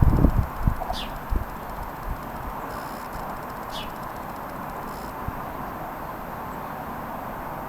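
Strong wind blowing, buffeting the microphone with low gusts in the first second or so, then a steady rush. A bird gives two short falling chirps, about a second in and again near four seconds.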